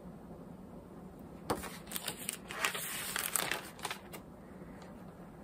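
Paper pattern booklets and a plastic binder sleeve rustling and crinkling as they are handled. It starts with a sharp crackle about a second and a half in and dies away about a second before the end.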